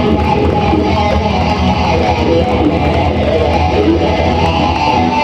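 Live rock band playing loud, led by strummed electric guitar over bass.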